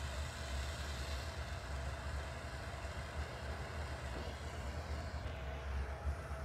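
Steady roar and hiss of gas-oxygen torch flames heating glass on a glassworking lathe, over a low steady hum. The highest part of the hiss thins slightly about five seconds in.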